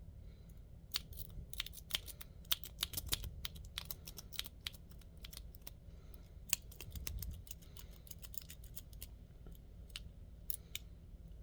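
Steel lock pick working the wafers of a wafer lock: a rapid, irregular run of small metallic clicks and scrapes, densest in the first few seconds and thinning out later.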